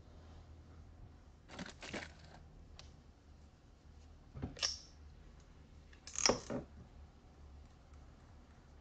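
A few brief rustling handling sounds, two close together near two seconds in and two more later, over a steady low hum.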